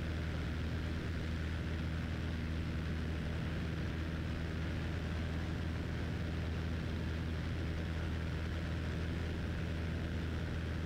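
Cessna 172's engine and propeller running steadily as the plane climbs out after takeoff, heard from inside the cockpit as an even, unchanging low drone with a light hiss over it.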